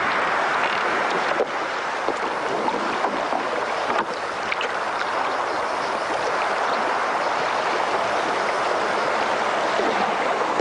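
Steady wash of sea water at the shoreline, with a few faint splashes.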